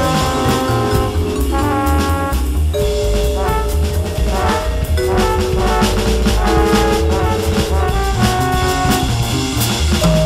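Jazz swing in four-beat played on a Roland V-Drums electronic drum kit with a cymbal pattern, over a sequenced backing of held horn-like melody notes and a moving bass line.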